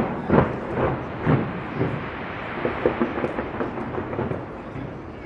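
Aerial fireworks bursting in a dense barrage: a continuous rumble of overlapping booms with sharper bangs standing out every second or so, loudest in the first second and a half.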